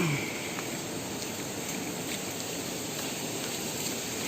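Steady rushing noise of a river running high after the rainy season, with a few faint clicks over it.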